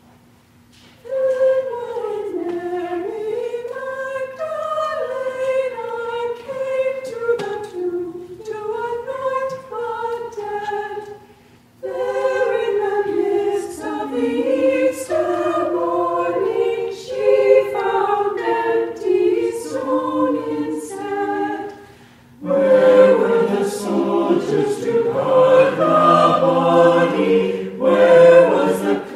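Choir singing in phrases separated by short pauses, the sound growing fuller as lower voices join about two-thirds of the way through.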